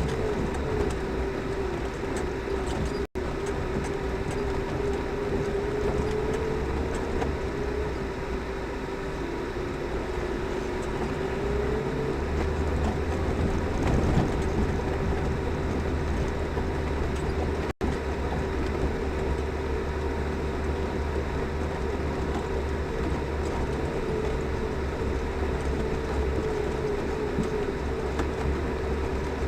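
Lada Niva driving off-road in winter: steady engine and drivetrain rumble with a whine that drifts slightly in pitch, and the low rumble swells about twelve seconds in.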